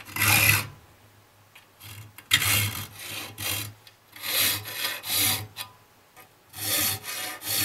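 A 7/32-inch round file rasping across the teeth of a steel pole-saw blade held in a vise, in short strokes that come mostly in pairs with pauses between: the saw teeth being sharpened one by one.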